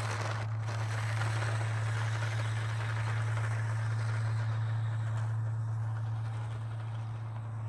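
Toy-grade New Bright RC Baja truck running on its original electric motor, the motor, gears and tyres whirring and rattling over dirt and grass as it drives away, fading over the last few seconds. A steady low hum runs underneath.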